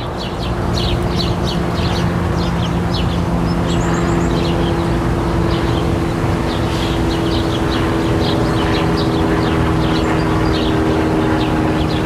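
Small birds chirping over and over, on top of the steady low drone of an airplane.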